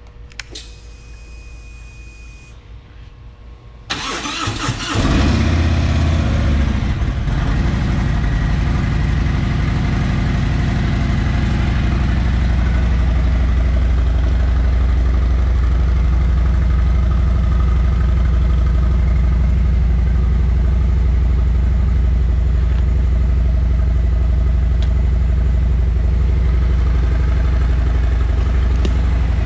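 Harley-Davidson Milwaukee-8 107 V-twin with stock exhaust cranking on the starter about four seconds in, catching, then settling into a steady idle.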